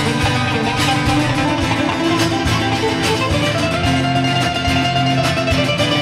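Two acoustic guitars playing together, strummed and picked in a steady rhythm.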